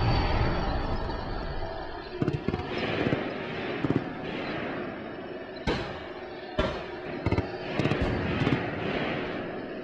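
Dubbed battlefield sound effects: sharp gunshots and blasts going off at irregular intervals, about seven in all, over a steady background of battle noise.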